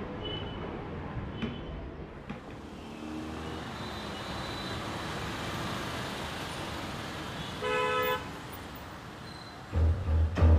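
Road traffic noise, with a car horn sounding once, briefly, about eight seconds in. Near the end, dramatic music with a deep drum beat starts.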